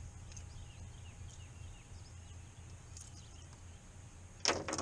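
Birds chirping faintly now and then over a low steady rumble, with a sudden loud clatter near the end.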